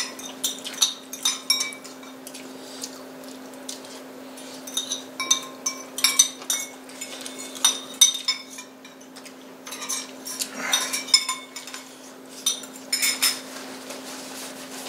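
Metal forks and spoons clinking and scraping against ceramic plates and bowls during a meal, in irregular clusters of sharp clinks that ring briefly. A faint steady hum runs underneath.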